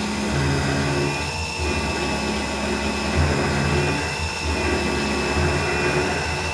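Mikini 1610L CNC mill boring holes in 6061-T6 aluminium with a 3/16-inch flat end mill spinning at 4500 RPM under coolant spray: a steady high whine over a low hum that shifts pitch every second or so as the cutter moves.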